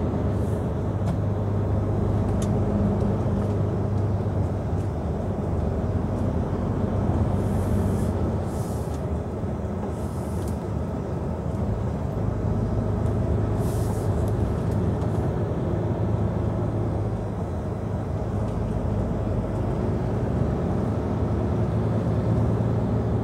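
Heavy truck's diesel engine running steadily under way with road noise, heard from inside the cab. A few faint, short hisses come in the middle.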